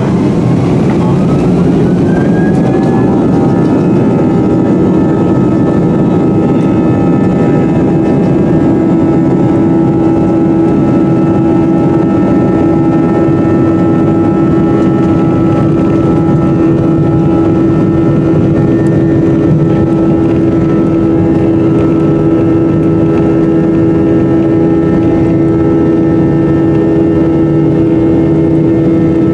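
Jet airliner engines heard from inside the cabin, spooling up to takeoff thrust: a rising whine over the first couple of seconds, then a loud, steady roar with held whining tones.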